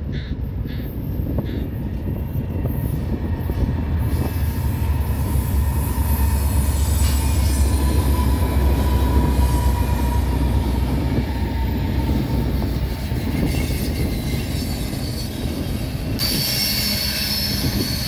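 Freight train passing close by: a Canadian Pacific diesel locomotive rumbles past, followed by rolling hopper cars. The rumble grows louder about four seconds in, and high-pitched wheel squeal sets in near the end.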